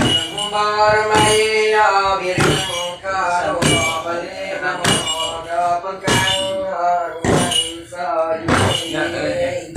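A man chanting Iban ramban verse in a long, wavering sung voice, with a wooden staff stamped on the floor about every 1.2 seconds to keep the beat.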